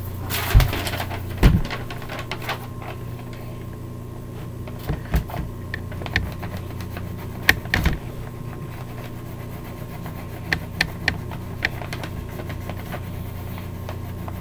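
Scattered light taps and knocks of hands and drawing things being handled at a desk, over a steady low hum; the sharpest knocks come about half a second and a second and a half in, and a few more around the middle.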